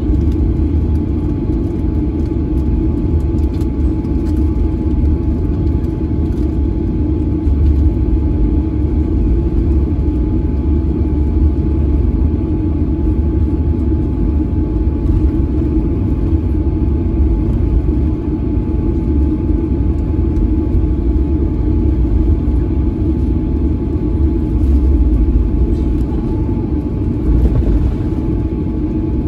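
Steady low rumble inside the cabin of a Boeing 737-900 airliner as it taxis, from the engines at taxi power and the wheels rolling on the taxiway, with a faint steady tone above it.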